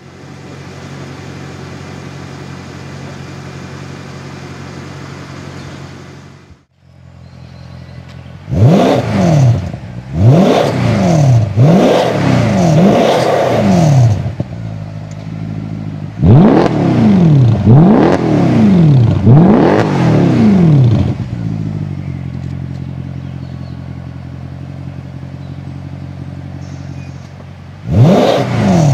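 Mercedes-Benz E63 AMG V8 through an iPE aftermarket exhaust, idling steadily and then revved in a run of about eight quick blips, each rising and falling in pitch. It drops back to a steady idle, then revs again near the end.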